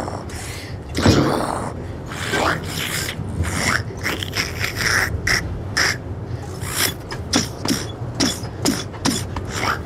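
A person's short gasps, grunts and breathy cries, coming quicker, about two a second, in the second half, over a steady low rumble from the train.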